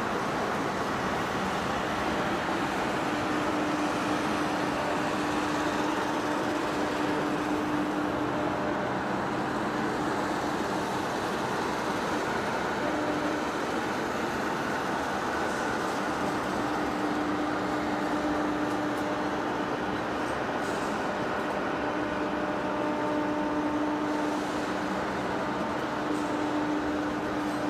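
Heavy industrial machinery running steadily, with a low hum that fades in and out every few seconds over a constant mechanical noise.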